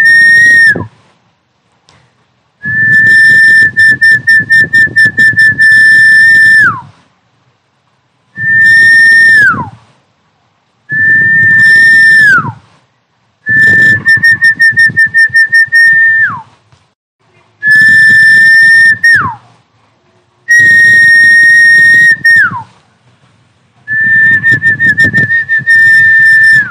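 Recorded snakehead fish-calling whistle played back loud, used to lure snakehead fish. Each call is a high whistle held for one to four seconds, sometimes fluttering, and ends in a quick downward slide. About seven calls come in turn, with short silences between them.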